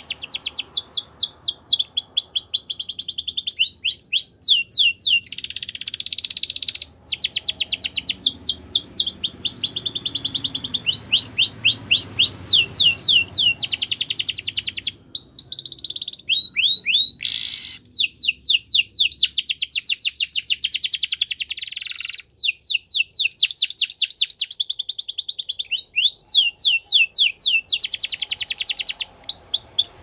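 Domestic canary singing a long, unbroken song of rapid trills. Quick runs of repeated falling notes switch to a new speed and pitch every second or two.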